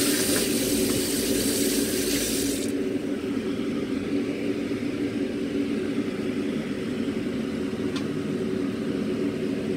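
Kitchen tap water running with a steady hiss that cuts off suddenly almost three seconds in, over a steady low machine hum.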